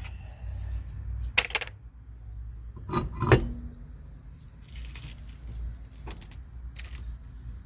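A few sharp metallic clinks and clanks from hand tools and car parts being handled, over a steady low rumble.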